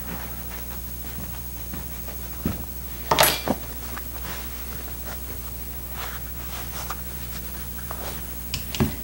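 Hands working upholstery fabric over a padded chair back: light rustles, brushes and taps, with one louder scrape of fabric about three seconds in and a couple of small knocks near the end. A steady low hum runs underneath.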